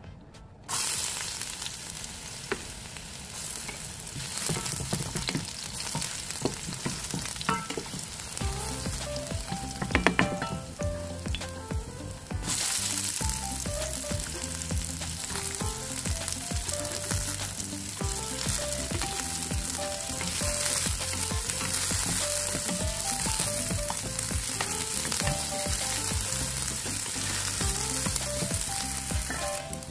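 Diced onion and garlic sizzling in hot oil in an enamel frying pan. The sizzle starts suddenly as they go in and gets stronger about twelve seconds in, with background music playing under it from about a third of the way through.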